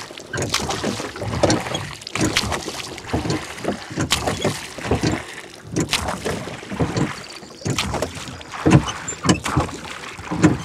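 Water splashing and sloshing against the hull of a small boat moving across a choppy lake, in short irregular splashes.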